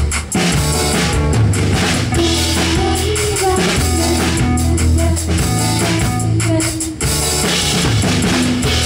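Live band playing through the PA during a sound check: a drum kit with bass drum and snare over held bass notes and guitar, with a brief break about seven seconds in.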